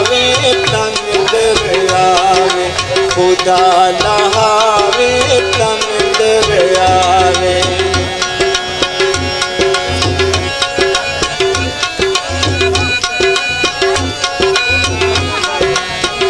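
Folk music: a harmonium playing a melody over a regular hand-drum beat.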